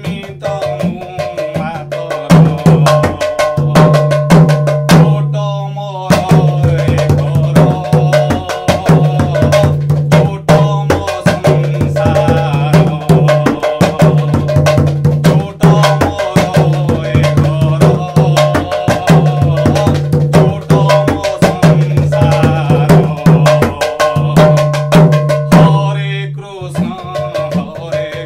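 Mrudanga, the two-headed barrel drum, played by hand in rupak taal: a fast, repeating cycle of open ringing bass strokes and sharp treble slaps. The rhythm breaks off briefly about six seconds in and again near the end.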